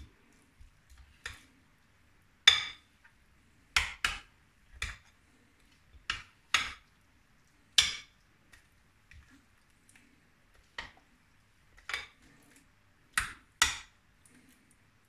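A spoon clinking and scraping against a glass mixing bowl while chicken pieces are stirred through a thick marinade: sharp clinks at uneven intervals, about one a second.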